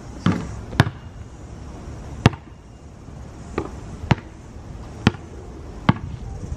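Basketball bouncing on an outdoor asphalt court: about six single sharp bounces, irregularly spaced roughly a second apart, with a duller knock just after the start.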